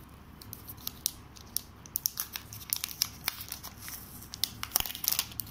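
Clear protective plastic wrap being peeled off the back of a new smartphone, crinkling and crackling irregularly, with the crackles coming more often after about two seconds.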